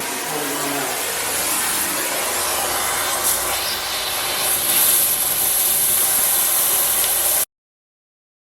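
Gas cutting torch hissing steadily, louder in its second half, until the sound cuts off abruptly about seven and a half seconds in.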